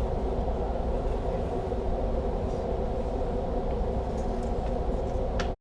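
A steady low rumbling noise with no gunshots, cutting off abruptly near the end.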